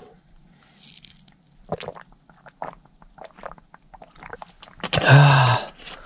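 A person eating something crunchy close to the microphone: irregular crunching and chewing clicks, followed by a brief voiced sound near the end.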